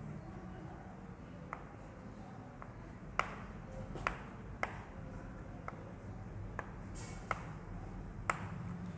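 Chalk on a chalkboard while drawing a structure: faint, irregularly spaced sharp taps, about eight in all, over a low steady room hum.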